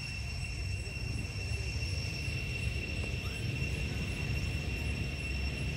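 Steady outdoor background: a constant low rumble under a thin, unbroken high-pitched tone, with no distinct calls or knocks.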